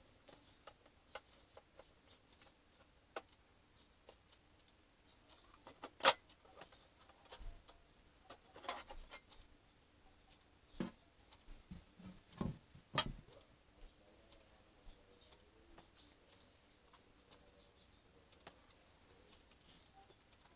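Handling noise from hands working on an opened audio mixer: scattered small clicks and taps, with one sharp click about six seconds in and a cluster of knocks between about twelve and thirteen seconds in.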